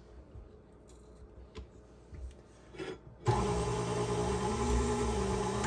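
A few light knocks, then about three seconds in a KitchenAid stand mixer is switched on and its motor runs steadily, driving the Spiralizer Plus attachment as it turns and spiral-cuts a potato.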